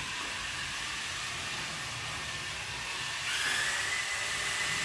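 Small electric motors of radio-controlled toy cars whining as they drive; about three seconds in a louder whine with a steady high tone comes in as the RC monster truck drives close.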